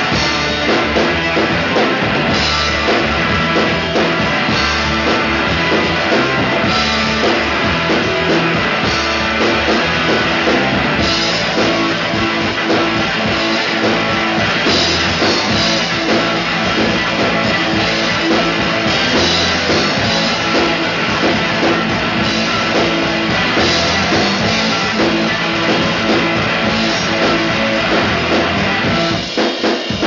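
Rock band playing a song live, guitar and drum kit together at full volume. Near the end the guitar drops out and the drums carry on alone.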